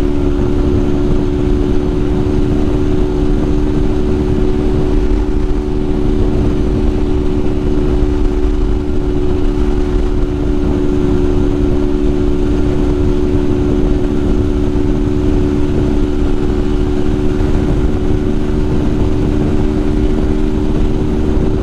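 Honda Titan 150's single-cylinder four-stroke engine running at steady high revs under way, its pitch held constant, with wind rush on the microphone.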